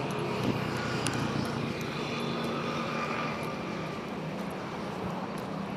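Road traffic: a steady noise of passing cars and motorcycles, with a held engine hum.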